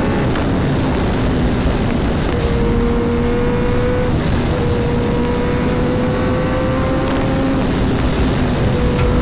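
Kawasaki Ninja ZX-10R's inline-four engine running at a steady cruise, heard from on the bike with heavy wind noise. The engine note climbs slowly and drops back twice, about four seconds in and again about seven and a half seconds in.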